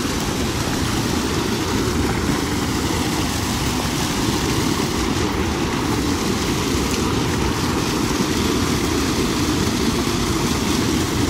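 Water pouring over a small concrete weir into the pool below: a steady rushing sound with most of its weight low down.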